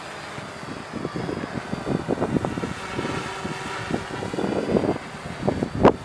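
Quadrotor's propellers humming faintly, their pitch drifting slowly up and down. Wind buffets the microphone in irregular low gusts, with a sharp gust near the end.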